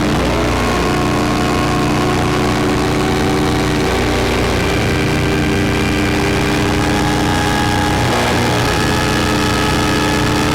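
Electronic drone from a Bastl Kastle 1.5 synthesizer and a looped Krackatone run through effects: a steady, buzzing bed of layered held tones whose pitches shift twice, about every four seconds.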